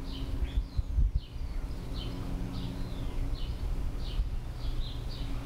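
A small bird chirping over and over, short high chirps about twice a second, over a steady low rumble, with a brief low thump about a second in.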